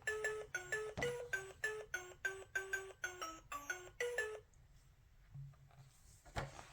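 Electronic chime melody from a children's push-button sound book: a quick run of short, bell-like notes, about four a second, lasting about four seconds. A single sharp click follows near the end.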